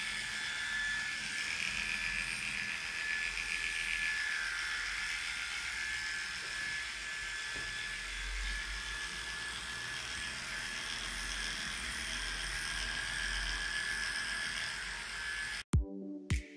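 Electric dog-grooming clippers running steadily with a high, even hum as they shave through a dog's matted coat. The clippers cut off suddenly near the end and music with a beat starts.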